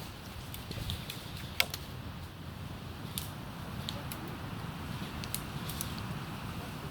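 A handful of sharp, isolated clicks over a steady low rumble, the loudest click about a second and a half in.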